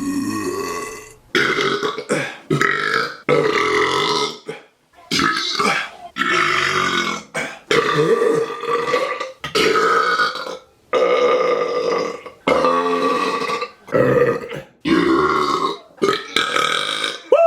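A man's loud 'caveman style' burps, about a dozen in a row, each lasting half a second to a couple of seconds, with short breaks between them.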